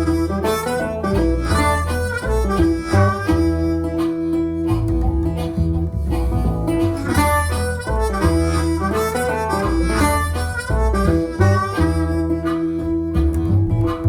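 Background music: harmonica melody over acoustic guitar with a bass line, in a bluesy style.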